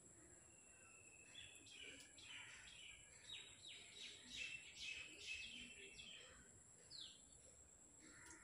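Faint birds chirping in the background: a run of short chirps and quick falling calls over a few seconds, with one more call near the end, over a faint steady high-pitched whine.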